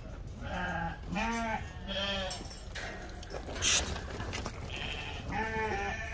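A flock of Lacaune sheep bleating: about four wavering calls, three close together in the first two seconds and another near the end. A short sharp hiss about midway is the loudest sound.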